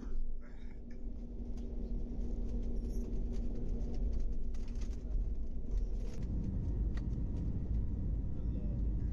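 Airliner cabin noise at the start of the takeoff roll: a steady engine hum over a low rumble that grows louder over the first few seconds. The rumble thickens about six seconds in as the plane gathers speed down the runway.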